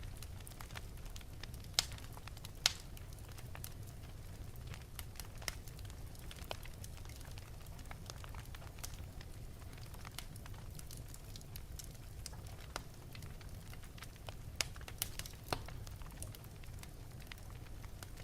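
Fire burning in an open fireplace, crackling under a steady low rumble. Scattered small pops run throughout, with two sharper pops about two seconds in and a few more near the end.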